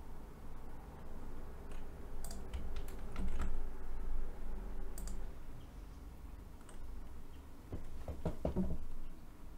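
Scattered keystrokes on a computer keyboard and mouse clicks, with several clicks close together about eight seconds in.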